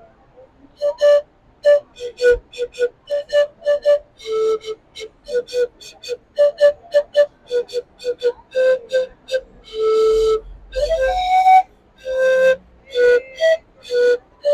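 Andean panpipe (rondador) playing a quick, lively run of short breathy notes within a narrow range of pitch, with a few longer held notes in the second half.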